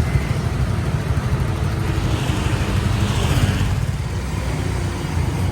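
Road vehicle driving, a steady low rumble of engine and road noise.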